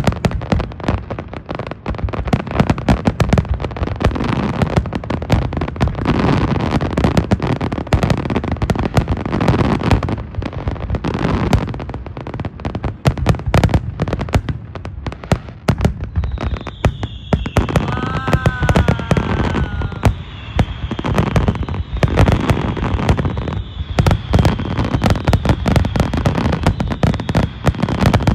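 Fireworks display: a dense, continuous barrage of bangs and crackling shell bursts, with a high, slowly falling whistle running through the second half.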